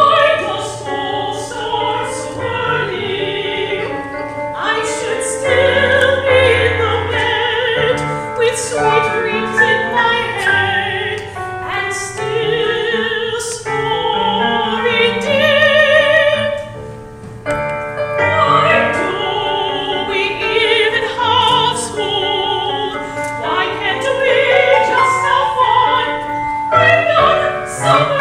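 Opera singers singing with wide vibrato over instrumental accompaniment.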